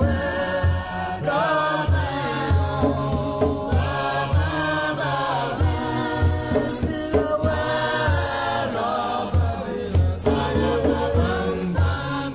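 Background music: chant-like singing over a steady low drum beat.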